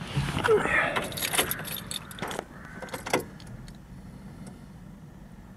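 Car keys jangling and clicking as the key goes into a VW Golf Mk5's ignition and is turned to switch the ignition on, without starting the engine. The clicking stops about three seconds in.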